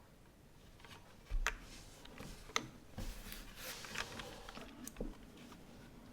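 A few scattered sharp clicks and light low knocks, with a stretch of brushing, rustling noise in the middle, from a mechanical keyboard being handled rather than typed on.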